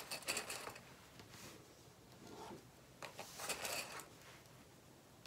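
Fabric and sewing notions handled by hand: faint rustling and light clicks in several short bursts, the loudest near the start and again about three seconds in.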